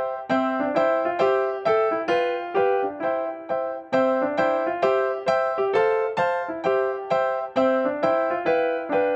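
Background music: a cheerful piano or electric-piano tune played as a run of evenly paced struck notes, about three a second.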